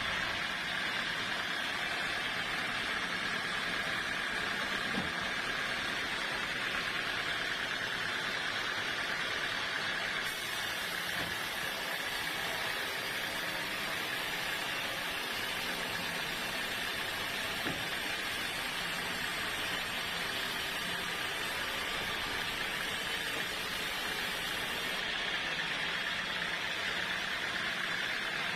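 Sawmill saw running steadily, a constant machine noise with a steady whine and no pauses.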